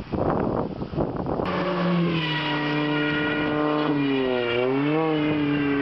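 A small hatchback rally car's engine, heard after a rough noisy first second and a half: the engine note sets in clear and steady, then the revs dip and rise again about four to five seconds in.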